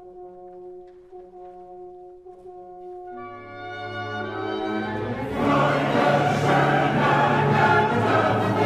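Symphony orchestra and choir performing classical choral-symphonic music. The orchestra holds soft sustained chords, swells from about three seconds in, and the full choir and orchestra come in loudly at about five seconds.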